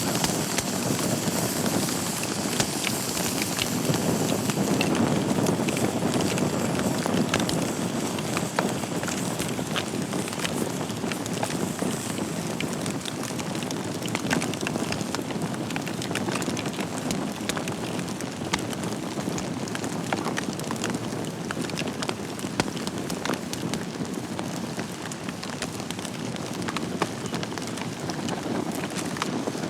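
Wood fire crackling in a fireplace: a steady hiss of burning logs with frequent sharp pops and snaps.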